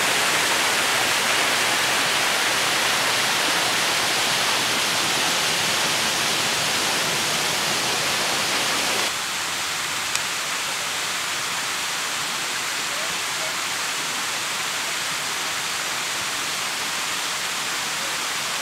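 Steady rushing hiss of a waterfall pouring into a pool, dropping a little quieter about halfway through.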